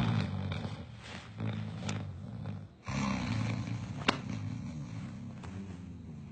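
A man snoring loudly: two long, rumbling snores, the second starting about three seconds in and fading out. A sharp click about four seconds in.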